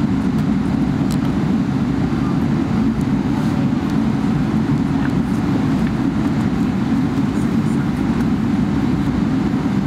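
Steady low cabin rumble inside a Boeing 777-300ER on the ground before takeoff, even and unchanging throughout.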